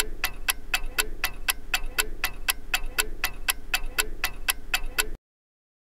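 Countdown-timer clock ticking sound effect: fast, even ticks, about four a second, that cut off suddenly about five seconds in.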